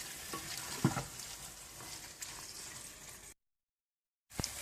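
Minced meat (keema) sizzling in ghee in a pot as its water cooks off, with a light knock about a second in. The sound cuts out completely for about a second near the end, then the sizzling resumes.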